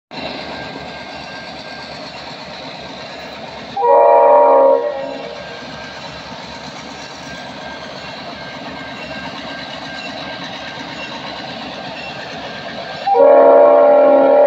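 EMD GP38 diesel locomotives rolling past with their engines running steadily, and the air horn sounding two blasts: one about a second long about four seconds in and a longer one starting near the end. The horn is the warning for the grade crossing just ahead.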